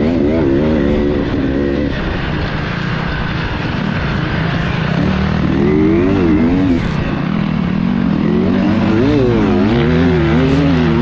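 Beta off-road motorcycle engine heard from on the bike, its pitch rising and falling again and again as the throttle is worked through sand, most often in the second half, over a steady rush of wind and track noise.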